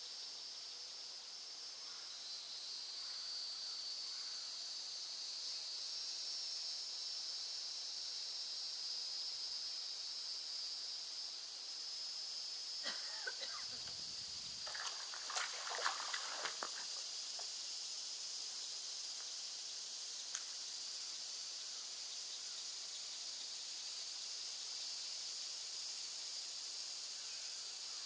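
Steady high-pitched drone of insects. About halfway through, a short cluster of clicks and knocks with a dull thud breaks in.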